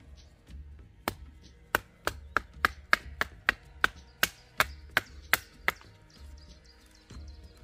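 A blade chopping wood: about fourteen quick, sharp strikes, roughly three a second, that stop about six seconds in.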